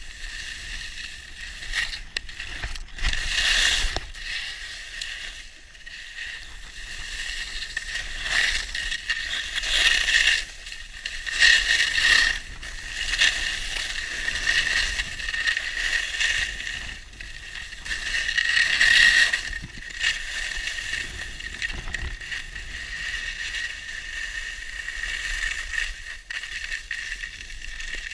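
Skis carving and skidding on groomed packed snow: a scraping hiss that swells and eases with each turn.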